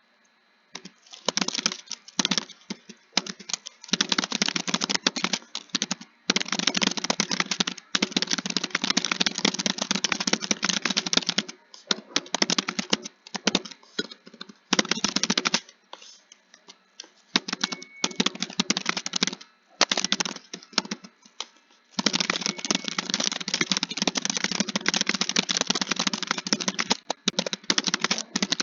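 Fast typing on a computer keyboard: dense runs of key clicks, broken every few seconds by short pauses.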